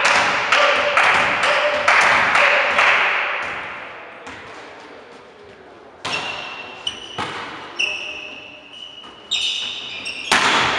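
Volleyball rally in a large sports hall: the ball is struck with several sharp hits that echo around the hall, and sneakers squeak on the court floor between them. A louder hit comes near the end.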